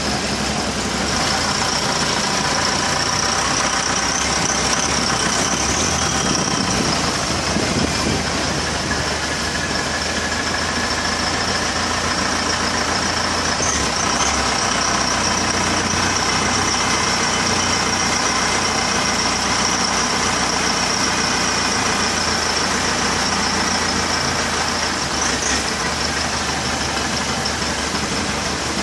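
Long-tail boat engine running steadily under way, with a steady high whine over the engine noise.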